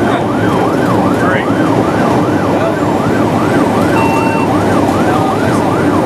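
Fire engine siren in fast yelp mode, a wail rising and falling about three times a second, heard from inside the moving truck's cab over steady engine and road noise.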